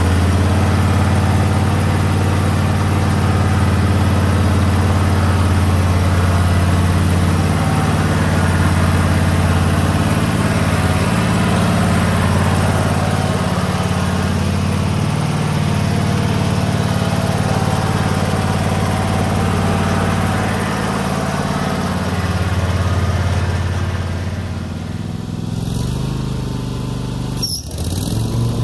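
Husqvarna riding lawn mower's engine running steadily with a deep hum. Near the end the sound drops off and changes character.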